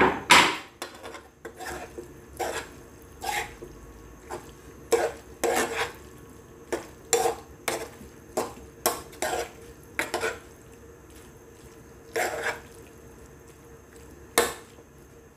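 Stainless spoon stirring diced chicken gizzard bopis in a frying pan, scraping and knocking against the pan in irregular strokes, loudest right at the start and once near the end.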